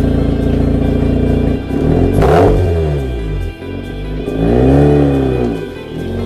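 Mazda RX-8's two-rotor Wankel rotary engine idling, then revved twice, about two seconds in and again near five seconds. Each rev rises and drops back to idle, with a sharp crack during the first.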